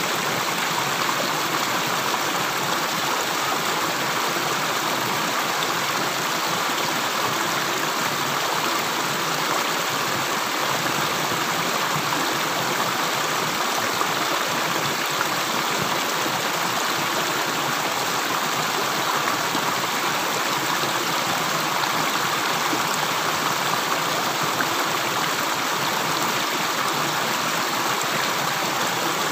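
Running water flowing in a steady, continuous rush, like a stream, with no separate drips.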